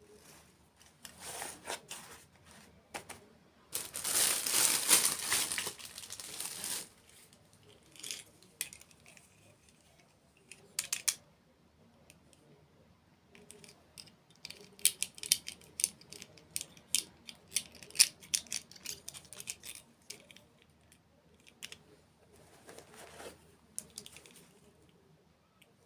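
Close-miked crinkling and tearing of dessert packaging. There is a long, loud stretch of crinkling about four seconds in, and later a quick run of sharp crackles.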